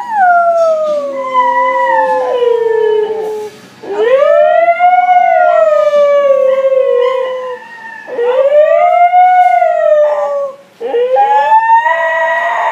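Siberian husky howling: four long howls with short pauses for breath between them, each rising briefly and then gliding slowly down in pitch.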